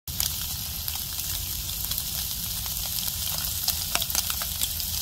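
Split conger eel fillets frying in a nonstick pan on a portable butane stove: a steady sizzle with scattered small pops of spitting fat.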